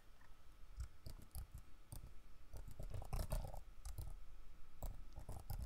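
Computer keyboard keys and mouse clicking irregularly as a spreadsheet column header is typed, with a denser run of keystrokes about three seconds in and again near the end.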